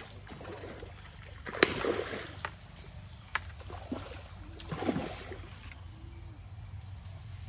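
A hooked fish thrashing at the water's surface as it is hauled in on a bamboo pole and line: irregular splashes and sloshing, the loudest about one and a half seconds in and again about five seconds in.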